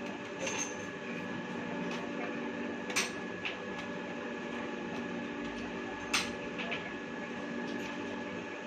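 CP electric pipe threading machine running with a steady motor hum, with a few sharp clicks about three seconds apart.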